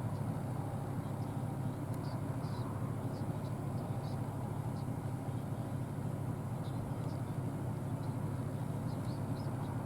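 Heavy diesel farm machinery running: a steady, unchanging engine drone, with faint short high-pitched chirps scattered through it.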